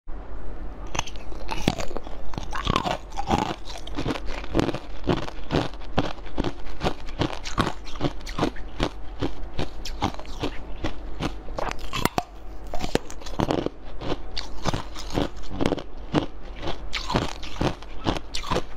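Hard ice being bitten and crunched between the teeth, a dense, irregular run of sharp crunches, a few a second.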